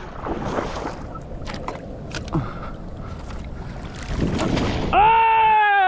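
Splashing and sloshing through shallow muddy water while grabbing at a blue crab, with scattered knocks and squelches. Near the end comes one loud, drawn-out yell that falls in pitch.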